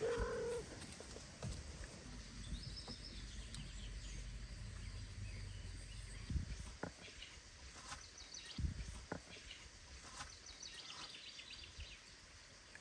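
Quiet outdoor ambience with faint birdsong: rapid high trills twice. There are a few soft knocks and rustles, and a short low call at the very start.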